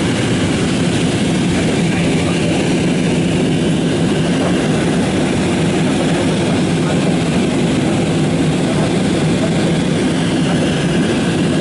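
Steady cabin noise of a jet airliner climbing after takeoff: an even, low drone of the engines and rushing air, heard from inside the cabin.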